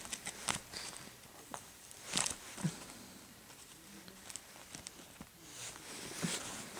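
Plastic-sleeved trading cards being handled and shuffled through: faint scattered rustles and light ticks.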